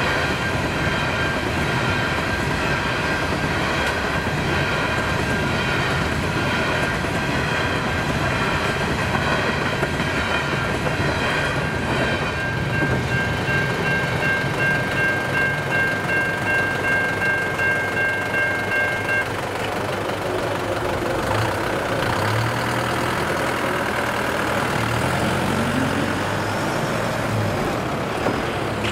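Coal hopper wagons rolling past over the crossing, while the level crossing's Safetran electronic bell rings steadily. After the last wagon the bell rings on alone and stops about two-thirds of the way through as the booms rise. A truck engine then pulls away across the tracks.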